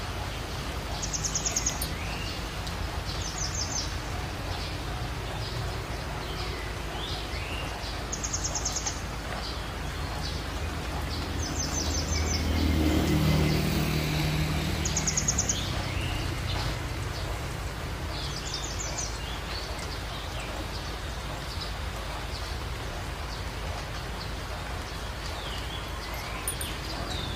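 Open-air ambience: a bird gives a short, high, rapid trill every few seconds over a steady low background rumble. A low hum swells and fades about halfway through.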